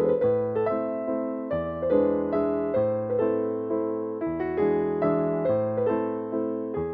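Background piano music: a steady stream of notes over a bass line that changes every second or two.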